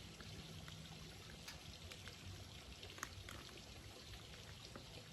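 Spring water pouring steadily into a plastic bottle, with a few faint ticks.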